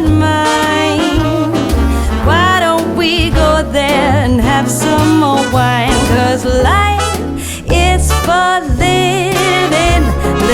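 Background music: an upbeat song with a steady pulsing bass line and a melody line that bends up and down over it.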